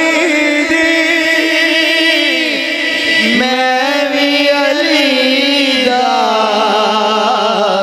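A man singing a Punjabi devotional song in praise of Ali into a microphone, drawing out long, wavering held notes with ornamented runs.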